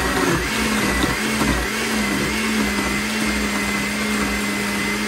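Hamilton Beach Power Elite Wave Action 700-watt blender running at full speed, its blades churning frozen coconut, strawberries, almond milk and ice into a smoothie. The motor's steady whine wavers and rises slightly in pitch over the first two seconds, then holds steady as the mix turns smooth.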